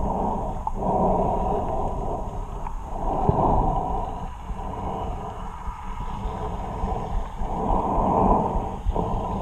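Muffled rush and slosh of water, as heard by a camera in a waterproof housing, swelling and fading every second or two.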